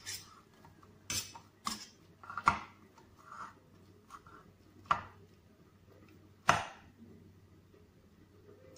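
Stainless steel ladle knocking and clinking against a steel pot while mashing boiled sweet potato, about half a dozen separate knocks with the loudest about six and a half seconds in.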